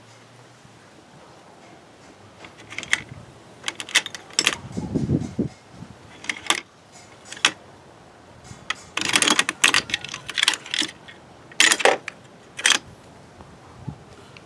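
Irregular metallic clicks and clatter of a small hand tool and fasteners against the plastic air filter housing while it is refastened, with a short low rustling thud about five seconds in.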